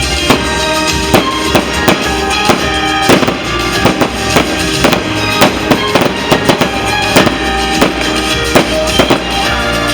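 Loud show music with a rapid, irregular run of sharp bangs, about two a second: fireworks going off.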